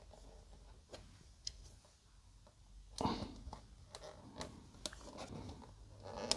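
Small polystyrene model-kit parts being handled and pushed together by hand: scattered faint clicks and taps, a little louder and more frequent from about three seconds in.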